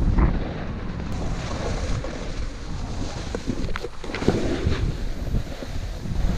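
Wind buffeting a GoPro's microphone on a snowboard run, a steady low rush, with the board scraping over chopped snow and a few short knocks around the middle.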